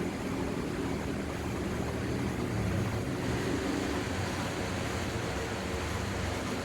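Ceiling fan running: a steady rush of moving air over a low electric motor hum.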